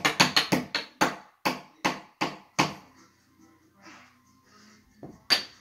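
Sharp knocks of hard toy pieces being banged by a toddler: a quick flurry of knocks, then one about every half second, and a single knock near the end.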